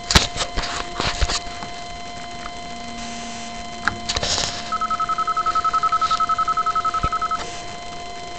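Siemens mobile phone being switched on: a few handling clicks and a key press, then its startup tone, a rapid pulsing beep of one steady pitch, about eleven pulses a second, lasting close to three seconds.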